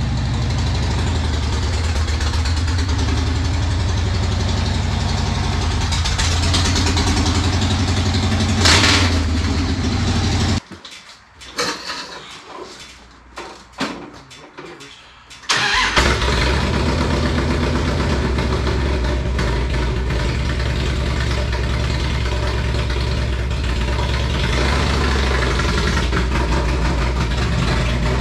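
Motorcycle V-twin engine running at idle, with a short rev about nine seconds in. It drops away for about five seconds just before the middle, then the engine runs steadily again.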